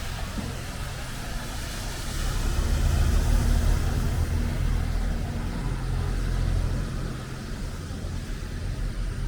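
City street traffic on wet roads: a motor vehicle's engine running close by, growing louder for a couple of seconds about a third of the way in, over a steady hiss of rain and tyres.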